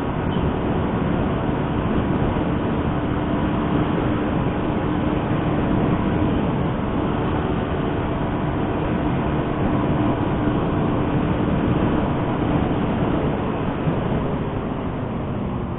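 Motorcycle engine running steadily at cruising speed while riding, under a heavy rush of wind and road noise; it eases off slightly near the end.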